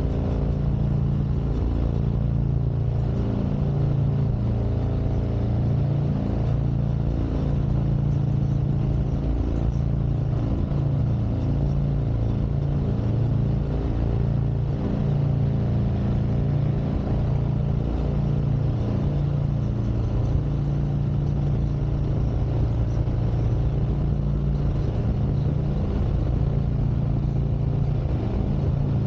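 Harley-Davidson Street Glide Special's Milwaukee-Eight V-twin running steadily under way, its engine note rising and falling a little with throttle.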